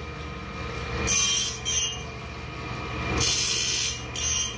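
Cook's Cat Claw bandsaw blade sharpener running: a steady motor hum, with the grinding wheel hissing against the steel blade teeth in short bursts roughly every two seconds as it works tooth by tooth. The stone is being shaped to the tooth profile by grinding on the blade.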